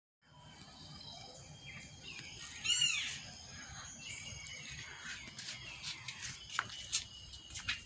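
Birds calling in the trees over a steady high-pitched insect drone: one loud arched call about three seconds in, then a run of short, sharp chirps.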